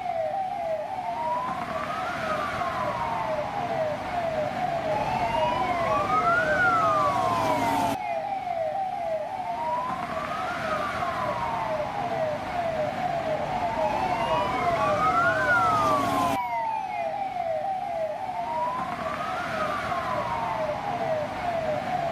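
Police car siren wailing: a slow rise and fall in pitch about every four seconds, overlaid with a rapid run of short, falling chirps.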